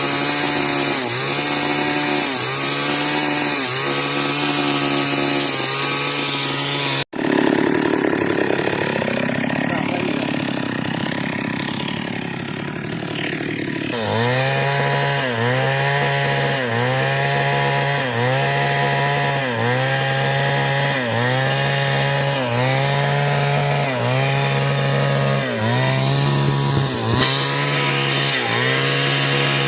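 Two-stroke chainsaw running at high speed, its pitch dipping and recovering about once a second. The sound cuts off abruptly about seven seconds in and comes back rougher and noisier for several seconds as the chain bites into wood, then the regular dipping resumes.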